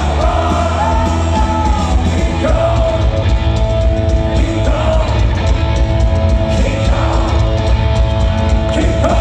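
Live rock band playing at full volume, heard from within the crowd: a singer singing over electric guitars, bass and drums, with long held notes.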